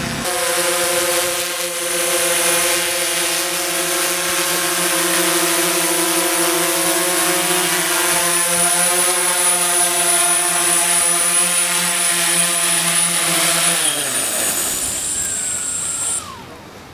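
Six-rotor hexacopter drone's electric motors and propellers hovering with a loud, steady buzzing hum and a thin high whine. Near the end the pitch slides down as the motors spin down after landing, and the sound stops about a second before the end.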